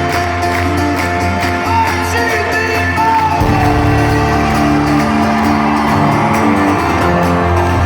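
Live folk-rock band playing an instrumental intro, picked strings over sustained chords, heard from within the crowd with fans whooping and shouting. A deeper bass part comes in about three and a half seconds in.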